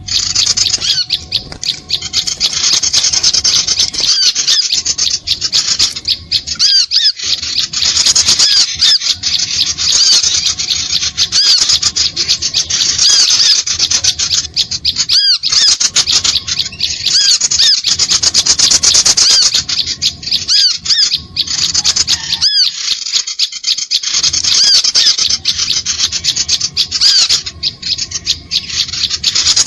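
Bird-lure (suara pikat) recording of small birds calling, made to draw small birds in: a dense, continuous run of rapid high-pitched chirps and trills that drops out briefly a few times.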